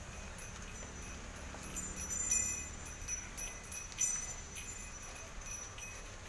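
Small bells on a decorated ceremonial bull jingling in scattered light pings as it walks, over a low steady rumble.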